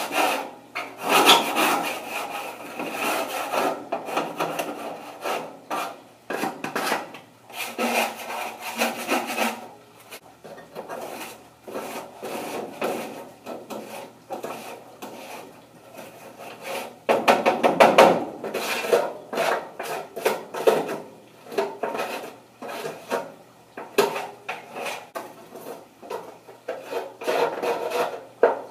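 Lil Chizler hand scraper scraping greasy, caked-on grime off a grill in quick, irregular strokes, coming in spurts with short pauses; the loudest run is a little past halfway.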